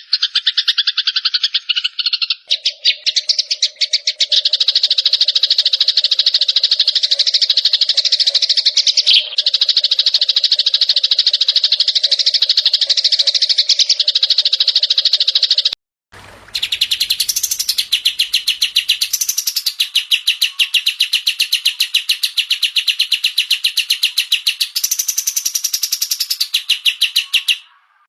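Recorded songbird song: fast, continuous trilling chirps, changing abruptly to a different trill about 2 seconds in and again about 16 seconds in.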